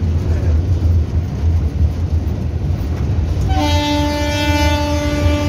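Electric locomotive running light, heard from inside its cab: a steady low running rumble, then about three and a half seconds in the locomotive's horn sounds one long, steady blast.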